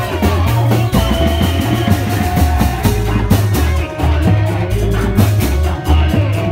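Loud music for a reog street dance: busy drumming over a deep bass line, with a held melody note about a second in.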